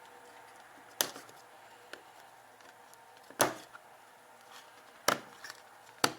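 Four sharp clicks of hard plastic parts being handled, about a second or two apart, the second one loudest.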